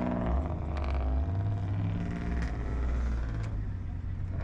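A car engine running with a deep, low note, its pitch stepping up a little and back down.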